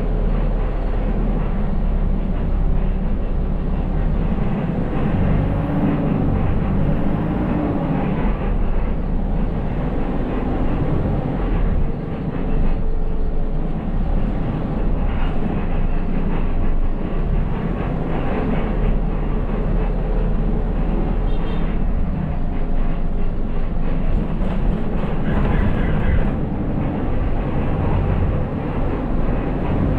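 City bus driving along a street, heard from the driver's cab: steady engine and road rumble with occasional rattles.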